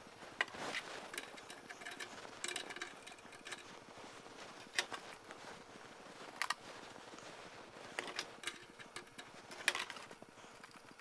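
Gas torch flame heating a rusty iron nut, with irregular sharp pops and crackles about once a second, some in quick clusters: the wet rusting solution on the metal spitting as the heat dries it.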